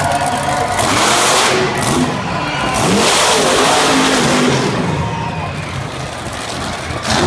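Monster truck engine revving hard as the truck spins in circles on dirt, the revs rising and falling; loudest from about a second in, easing off after the middle, with a short loud burst near the end.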